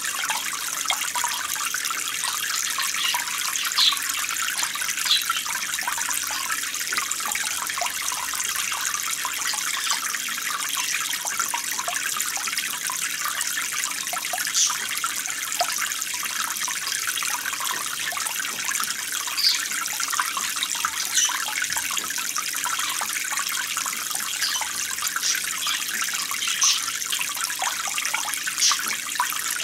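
Steady running, trickling water, with a few brief sharper splashes standing out now and then.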